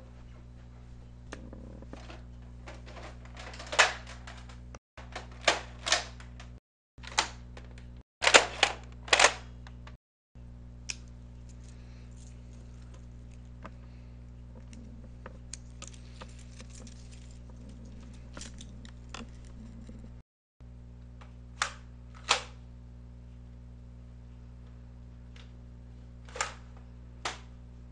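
Sharp plastic clicks and clacks of Nerf blasters being handled, loaded and primed, coming in small clusters with pauses between, over a steady low hum.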